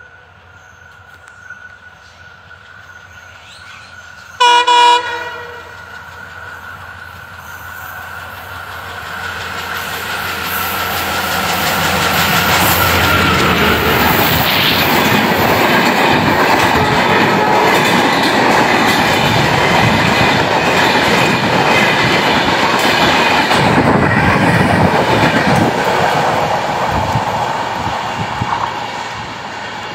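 Bangladesh Railway's Nilsagar Express passenger train gives one short horn blast about four seconds in. It then passes close by, its wheels clattering on the rails in a rumble that builds, holds for about fifteen seconds as the coaches go by, and fades near the end.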